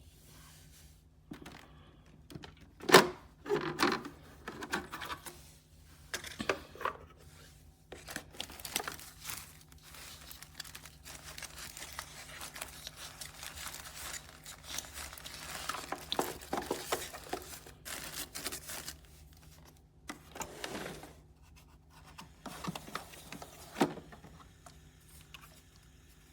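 Irregular crinkling, rustling and scraping handling noises with occasional sharper clicks, over a faint steady hum.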